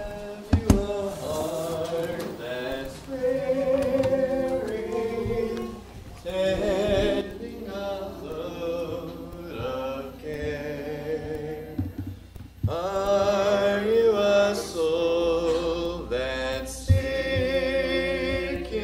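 A church congregation singing a hymn together in unaccompanied, a cappella style, in phrases with short breaths between them. A brief knock sounds about a second in.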